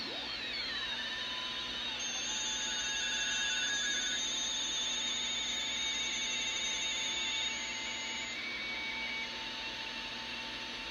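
Static hiss from a National 173 shortwave receiver on the 20-meter band, carrying several steady whistling beat-note tones that start and stop. In the first second one whistle glides down in pitch as the receiver is tuned.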